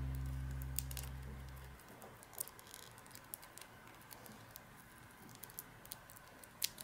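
A low buzzing note fades out over the first two seconds, then faint, scattered small clicks and taps of hands handling plastic toys and clay.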